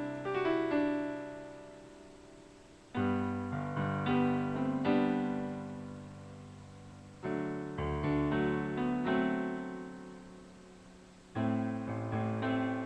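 Solo piano intro to a slow song: a chord is struck about every four seconds, with a few melody notes picked after each one, ringing and fading.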